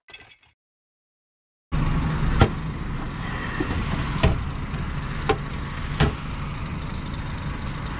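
Diesel engine of a DAF XF truck idling, heard from inside the cab, starting about two seconds in, with four sharp clicks or knocks over the steady hum.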